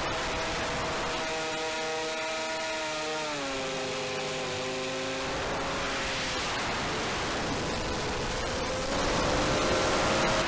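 Racing quadcopter's 2205 brushless motors and two-blade 6-inch propellers whining over a steady hiss of rushing air. The pitch drops about three seconds in and climbs again near the end as the throttle changes.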